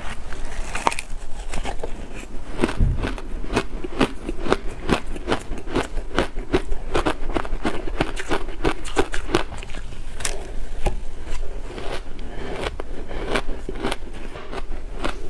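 Close-up crunching and chewing of shaved blender ice with milk powder, a dense run of crisp crackling crunches, along with a metal spoon scraping and scooping the ice in a plastic container.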